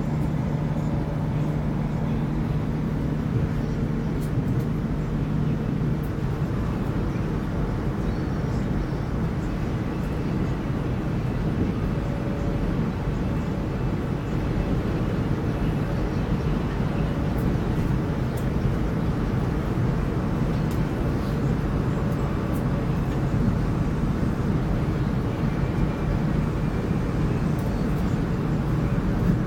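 Steady running noise of a CRH (Hexie) high-speed train heard inside the passenger car at speed: a low rumble of wheels on rail and air rushing past. A low hum underneath fades out about six seconds in.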